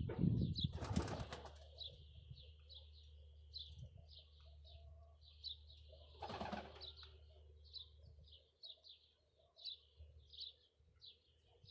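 Small birds chirping in quick, steady repetition, a few short high notes every second, with two short bursts of wing flapping about a second in and after six seconds.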